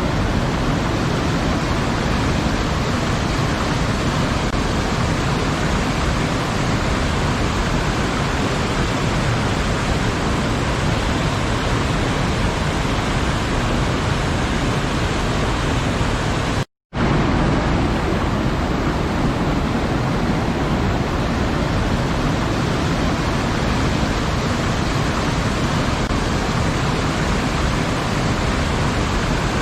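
Waterfall: a steady, dense rush of falling water, cutting out to silence for a split second a little past halfway.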